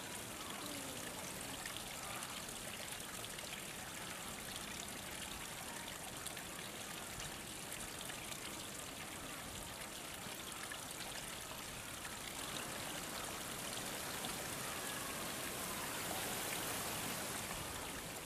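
Steady rush of running water, unbroken, growing a little louder in the last few seconds.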